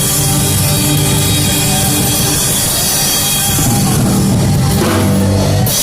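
A live gospel band playing, with a drum kit keeping the beat under held chords.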